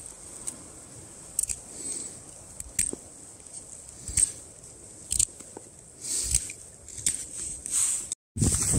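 Scattered light clicks, taps and rustles of camping gear being handled while a tent is pitched, with a few sharper ticks. The sound cuts out abruptly near the end.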